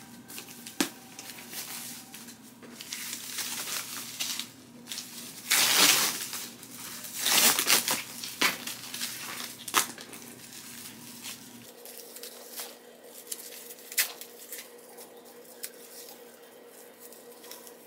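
Plastic and foam wrapping being pulled off and handled: irregular bursts of crinkling and rustling, the loudest about six and seven and a half seconds in, with a few sharp taps between.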